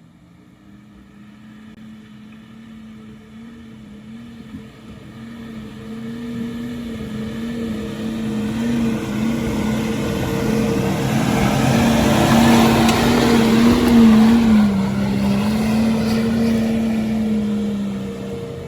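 Off-road vehicle engine running as the vehicle approaches, passes close about two-thirds of the way through, and pulls away, with a steady engine note that swells and then fades.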